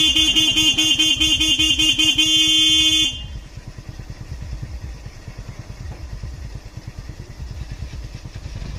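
A vehicle horn sounds loudly for about three seconds, wavering in pitch at first and then held steady, and cuts off abruptly. After it, a vehicle engine keeps running with a low, even rumble.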